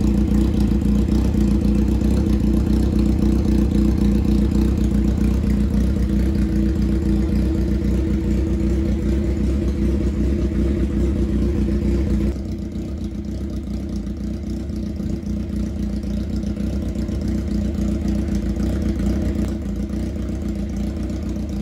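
Honda CBX400F's air-cooled inline-four running steadily at idle through straight pipes. It gets suddenly quieter about twelve seconds in.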